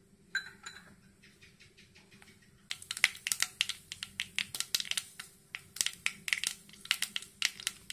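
Mustard seeds popping in hot coconut oil in a pan: sharp crackles, a few scattered at first, then many in quick succession from about three seconds in, as the seeds burst.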